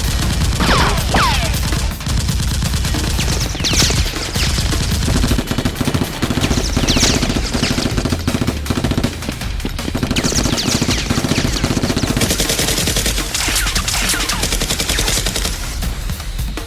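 Sustained rapid automatic gunfire, continuous dense strokes, with a falling whistle cutting across it several times.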